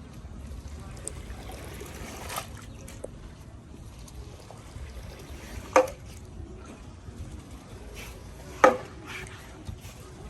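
Water trickling and splashing while a mat is washed, with two sharp knocks, one about halfway through and a louder one near the end.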